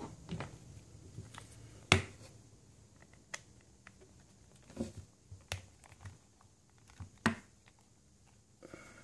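Irregular sharp clicks and taps of a screwdriver working the screws of the Wild Willy 2's hard plastic transmission case while the case is handled. The sharpest click comes about two seconds in.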